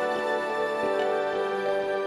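Instrumental background music with long held notes that change to a new chord about a second in.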